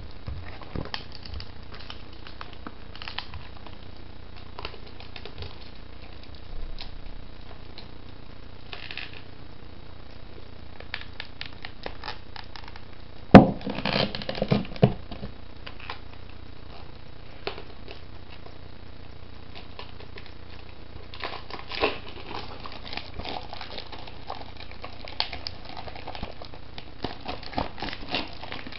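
Plastic shrink-wrap on a DVD case crinkling and crackling as it is picked at and peeled off, with one sharp click about halfway through and denser crackling near the end.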